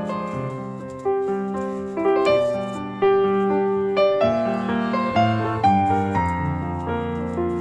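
Background piano music: a slow, gentle melody of single notes, each struck and then fading.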